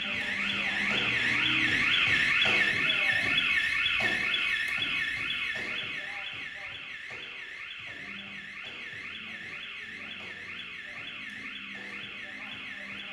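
Instrumental electronic music: a high, siren-like warbling tone sweeps up and down several times a second over low notes that change every second or so. It swells in the first few seconds, then settles quieter.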